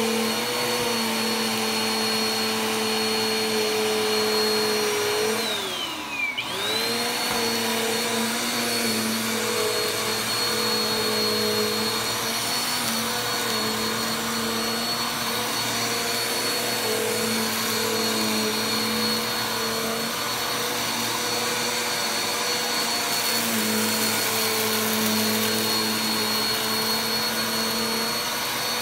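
Corded upright vacuum cleaner running over carpet: a steady motor whine over a hiss of suction. About six seconds in the motor's pitch drops sharply and then swoops back up to full speed.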